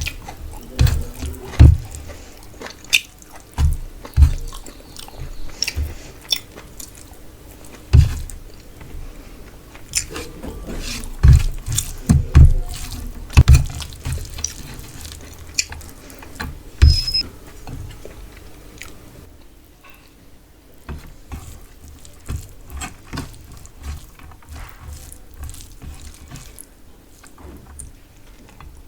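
Close-up eating sounds: a person chewing a mouthful of rice with fish curry, with wet mouth clicks and soft low thumps coming irregularly, thinning out for a moment past the middle.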